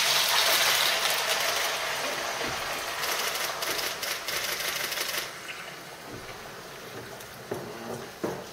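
Wine poured from a bottle into a cast-iron casserole of browned chicken and vegetables: a splashing hiss with rapid crackles that dies away about five seconds in, followed by a few soft knocks near the end.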